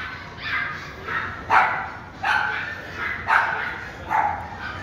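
Small puppies yapping: a string of sharp, high-pitched barks, about seven of them, coming roughly one every half second to a second.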